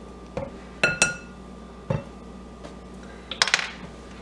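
A measuring spoon clinking against a glass mixing bowl: a few separate light knocks in the first two seconds, one with a brief glassy ring, then a short clatter of several quick clinks near the end.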